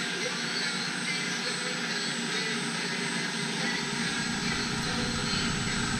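Milling machine running as a 90-degree double-sided end mill cuts a spline groove along an axle shaft held in an indexing head: a steady mechanical hum and hiss with a constant high whine. A lower rumble comes in a little past halfway.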